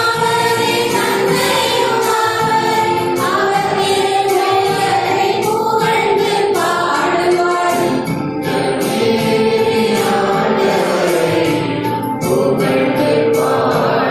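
A choir singing a Tamil Christian hymn of praise in a church, with notes held and moving steadily from phrase to phrase.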